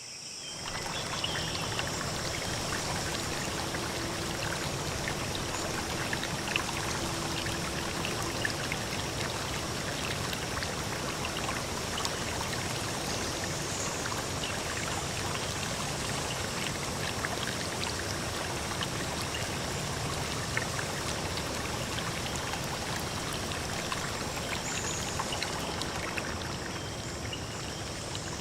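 Steady rush of running water, with small splashes and drips ticking through it.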